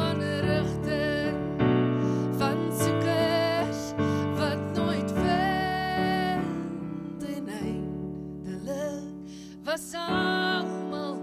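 A woman singing a slow song with vibrato over sustained electric piano chords. She holds one long note about six seconds in, and the voice comes back in near the end after a quieter stretch.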